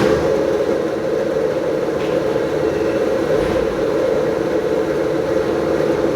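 Machine running with a steady mechanical drone, which shifts at the start to a slightly higher, rougher hum and holds there.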